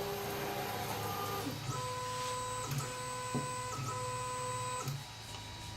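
JGAurora A5S 3D printer's stepper motors whining as the nozzle travels to the third bed-leveling position, in several moves of about a second each, going quiet about five seconds in.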